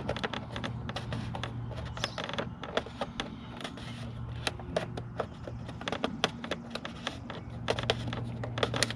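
Irregular light clicks and taps of a plastic USB charger adapter being handled and pushed into a mounting hole in a motorcycle's fairing panel, its threaded body catching on the edges of the hole. A low steady hum runs underneath.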